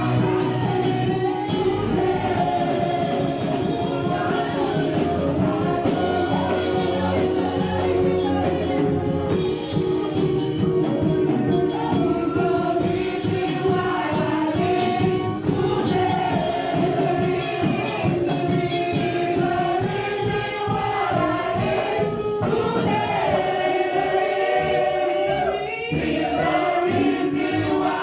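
Church choir singing a gospel song over a steady beat of percussion.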